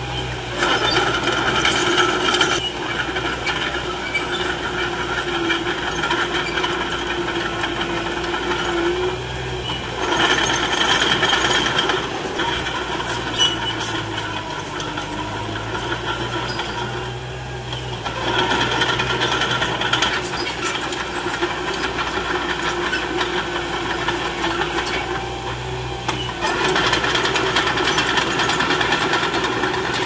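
Small crawler bulldozer's diesel engine running, with a rapid metallic clatter from its tracks, swelling louder for a few seconds at a time as it pushes and works the soil.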